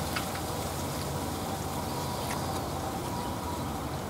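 A man chewing a mouthful of bento, with a few faint sharp clicks near the start and again about two seconds in, over a steady low rumble.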